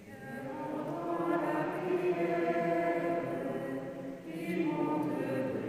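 Choir chanting in long held notes, the singing easing briefly about four seconds in and then carrying on.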